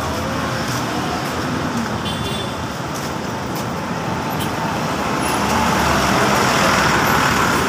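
Street traffic noise: a steady wash of passing motor vehicles, swelling louder near the end.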